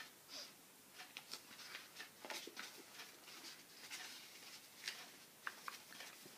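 Faint rustling and light scratchy handling of paper pages as a book is leafed through, in many short irregular bursts.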